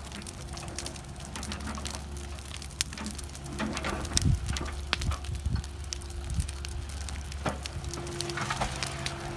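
Brush and stump fire crackling and popping with scattered sharp snaps, over the steady low running of a compact excavator's diesel engine.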